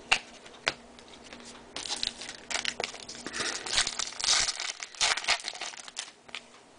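Crinkling of plastic trading-card packaging being handled, with a few sharp clicks in the first second, then repeated crinkling from about two seconds in until shortly before the end.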